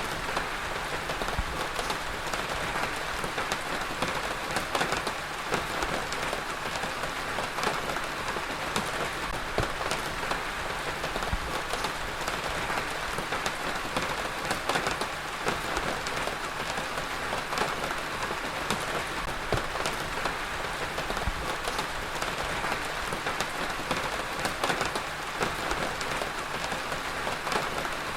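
Heavy rain falling steadily, an even rush of rain with many individual drops pattering on a surface.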